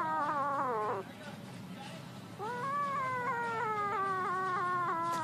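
Young kitten crying: two long, wavering wails. The first falls in pitch and trails off about a second in; the second starts near the middle, rises, then slowly sags and lasts nearly three seconds.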